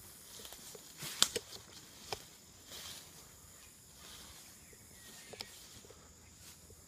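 Faint rustling in dry leaves with a few sharp snaps and clicks, the loudest about a second in and another about two seconds in.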